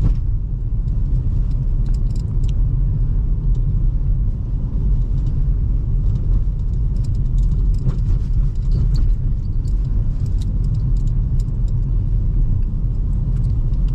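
Steady low road and engine rumble inside the cabin of a 2005 Toyota Highlander driving on a snowy road, with scattered light ticks and clicks throughout.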